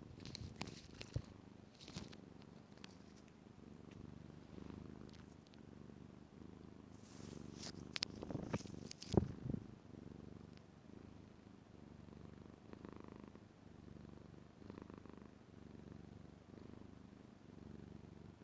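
Kitten purring steadily, close up, with scattered sharp clicks and rustles that cluster about seven to nine seconds in.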